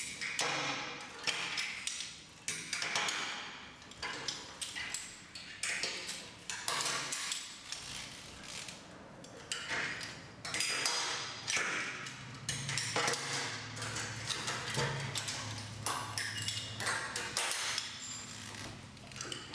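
Metal carabiners and wide-opening double-action hooks of a Y lanyard clinking and clicking as they are unclipped and clipped onto overhead anchor points, many short metallic clicks with a brief ringing ping.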